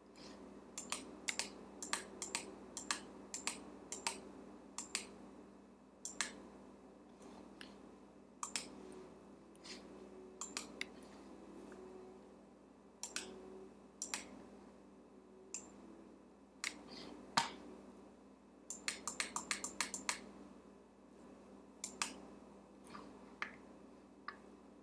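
Clicking on a computer as it is operated: single sharp clicks at irregular spacing, with a quick run of about eight clicks around two-thirds of the way through, over a faint steady hum.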